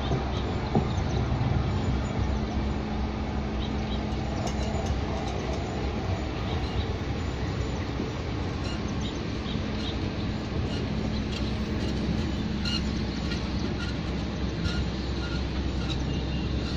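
Metro train rolling slowly along the track with one wheelset carried on a wheel set trolley: a steady low noise with a constant hum and scattered light ticks and squeaks.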